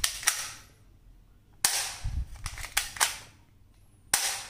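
Toy gun firing its bang sounds: a sharp bang with a hissing tail at the start, a quicker run of bangs from about a second and a half in, and another single bang near the end.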